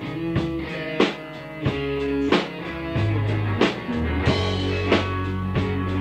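Amateur rock band rehearsing, recorded on cassette tape: a drum kit strikes about every two-thirds of a second under sustained bass notes and guitar.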